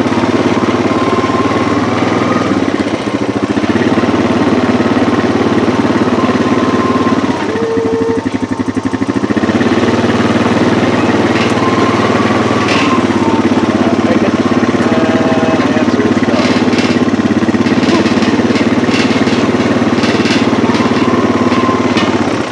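Four-wheeler (ATV) engine running steadily, easing off briefly about eight seconds in.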